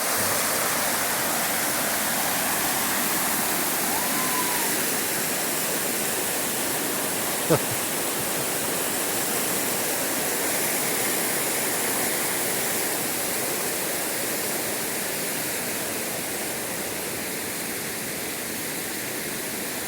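Waterfall on a mountain creek running high, a steady, even rush of water pouring over rock. A single brief click comes about seven and a half seconds in.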